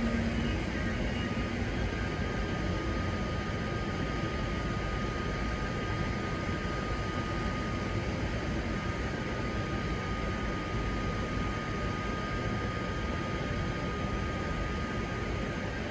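Outdoor railway station ambience: a steady rumble and hiss with one constant high-pitched whine, and no distinct passing train or announcement.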